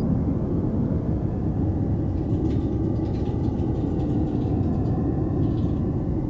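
A steady low rumbling drone, with a few faint ticks in the middle.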